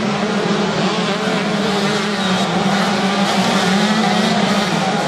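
125 cc two-stroke motocross bikes racing, their engines revving up and down as the riders work the throttle through the corners, with several engines heard at once.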